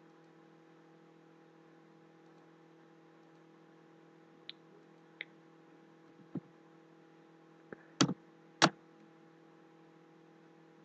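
Computer mouse and keyboard clicks: a few faint single clicks, then a cluster of sharper, louder clicks about eight seconds in. A low, steady electrical hum runs underneath.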